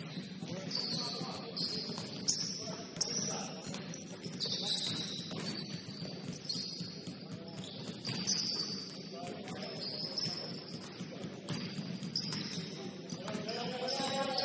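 Basketball shoes squeaking on the court in many short, high chirps, with a couple of sharp thumps a little over two seconds in.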